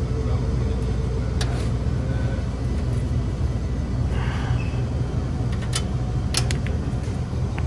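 Hermetic compressor of a refrigerated deli display case running with a steady low hum, working against high head pressure. A few light clicks and taps come over the top.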